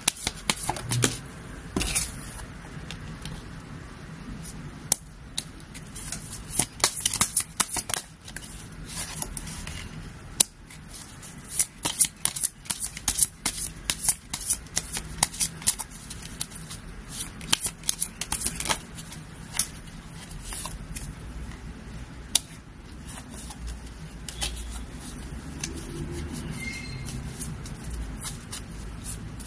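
A deck of tarot cards being shuffled by hand and dealt out onto the table: long runs of quick, crisp card clicks that come in spurts with short pauses between.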